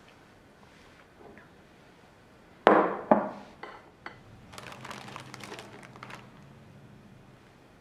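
Two sharp knocks of crockery set down on a kitchen countertop, about a third of the way in, followed by a few lighter taps. Then a plastic packet of ladyfinger biscuits crinkles for a second or two as one is pulled out.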